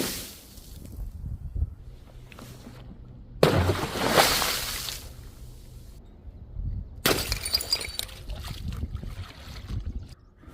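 Glass breaking and crunching under crushing force, in two bursts: one about three and a half seconds in and a second, glittering one of tinkling shards about seven seconds in.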